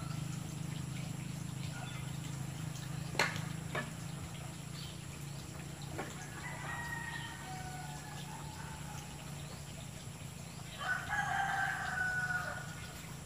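A rooster crowing twice, once about six seconds in and again near the end, over a steady low hum. A couple of sharp knocks come a few seconds before the first crow.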